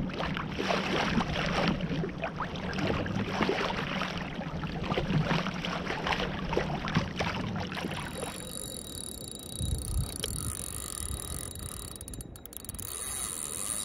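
Water sloshing and rushing against a kayak's hull as it moves over open sea, with some wind on the microphone. About eight seconds in this gives way abruptly to a much quieter, faint steady hiss.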